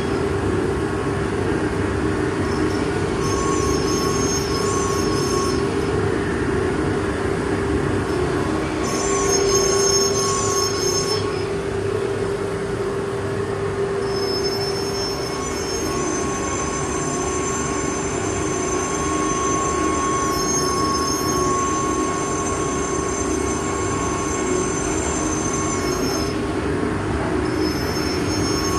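Spindle of a 12-tool ATC CNC router running steadily while cutting wood, with a high-pitched whine that comes and goes in stretches of a few seconds.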